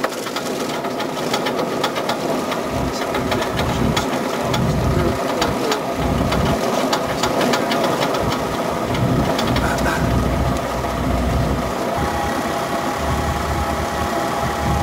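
Small propeller aircraft engine running at a steady pitch, with gusts of wind buffeting the microphone.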